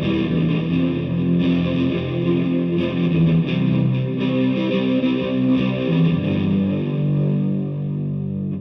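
Electric guitar played through a DigiTech GNX3 multi-effects preset with distortion, picking a run of single notes and then holding one long note near the end.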